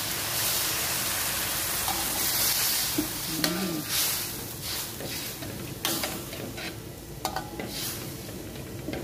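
Broth poured into a hot wok of frying shallots, garlic and chillies, hissing and sizzling, then a metal spatula scraping and clicking against the wok as the sauce is stirred, the sizzle dying down.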